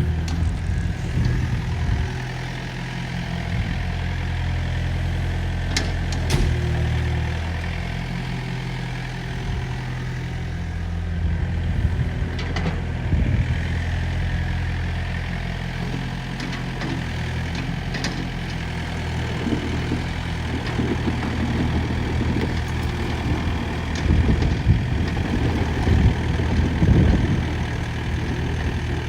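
Diesel engine of a Volvo ECR58 midi excavator running, mostly at a steady idle, with a few sharp clicks. In the last third the sound becomes louder and more uneven.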